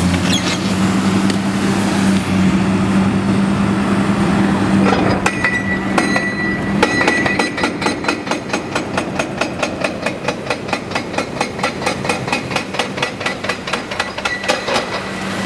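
Excavator-mounted hydraulic breaker pounding reinforced concrete, with a steady hum from the machine underneath. The hammer settles into a rapid, even run of blows, about five a second, from about five seconds in.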